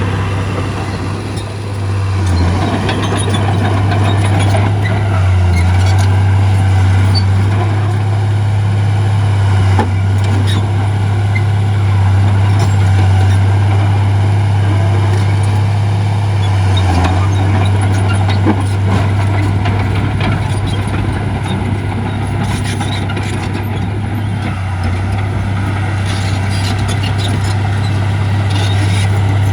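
Heavy diesel earthmoving equipment running steadily under load, a deep, even engine drone with scattered metallic clanks and knocks.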